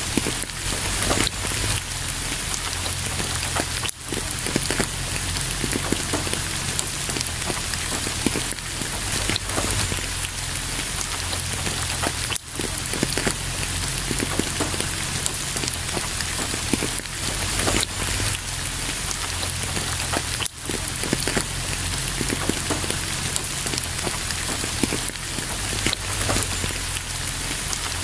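Steady rain, with many separate close drops hitting a surface through a dense wash of falling water. The sound cuts out for an instant about every eight seconds.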